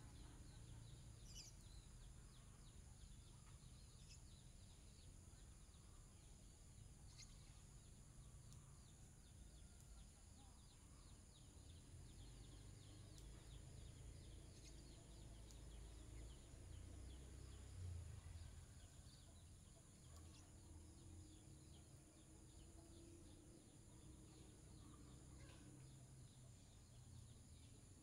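Near silence of faint rural ambience: scattered faint bird chirps over a steady high insect drone and a low rumble.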